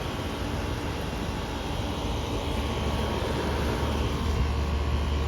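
2014 Concord 2-ton air conditioner condensing unit running, its compressor and fan giving a steady mechanical drone with a low hum that grows a little stronger about halfway through. The uploader judges that it sounds terrible and that the old, failing compressor is still in it and needs replacing.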